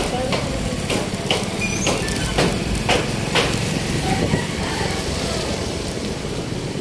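Street traffic: a steady vehicle engine rumble with irregular sharp clicks and knocks over it, most of them in the first half.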